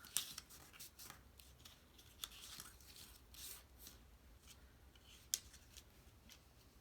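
Cardstock being folded and creased by hand: faint paper rustles with scattered crisp clicks, the sharpest about five seconds in.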